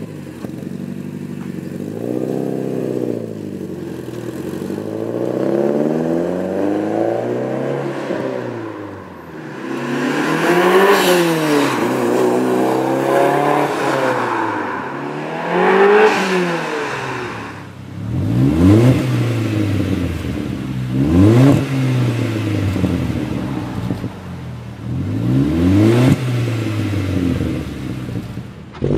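Porsche 944 Turbo's turbocharged four-cylinder through an HKS exhaust, revving up and falling back several times. Then a 2001 Audi A4 exhaust with a Magnaflow straight-through resonator, blipped in about four quick sharp revs.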